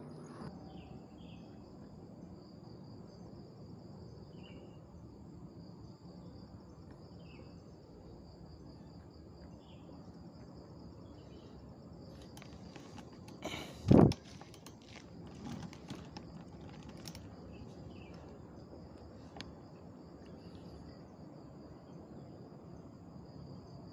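Insects chirring steadily in a high band, with one sharp, loud crack a little past halfway through.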